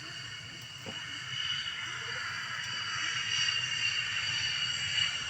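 Jet engine running on the ground with a steady high-pitched whine over a low rumble, growing louder toward the end.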